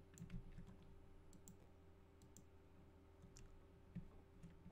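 Computer mouse clicking and its scroll wheel ticking: a scattering of faint, sharp clicks over a steady low hum.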